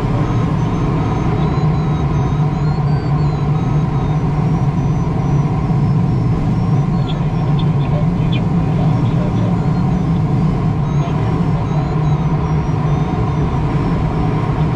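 Steady rushing of air around a sailplane's cockpit in flight, loud and unbroken.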